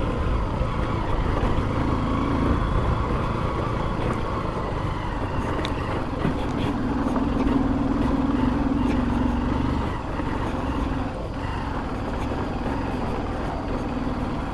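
Honda CB Shine 125's single-cylinder four-stroke engine running while the motorcycle rides along a rough off-road track. The engine note holds steady for stretches and eases off briefly about ten seconds in, over a low rumble of wind and road, with a few light knocks from the bumps.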